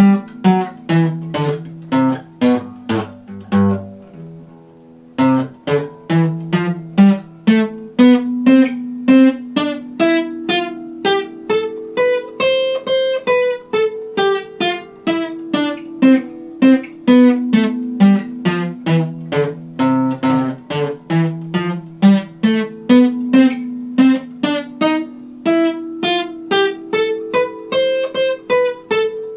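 Epiphone steel-string acoustic guitar played one note at a time in a picked, repeating figure, each note ringing on, with a brief break about four seconds in.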